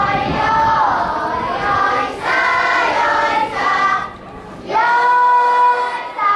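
Children singing a festival chant together: long held notes that slide up and down in pitch, with a brief pause for breath about four seconds in.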